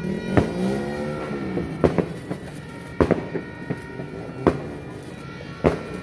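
New Year firecrackers and fireworks going off around the neighbourhood: about six sharp bangs, roughly a second apart. Early on a droning, pitched sound rises and then falls in pitch for about a second.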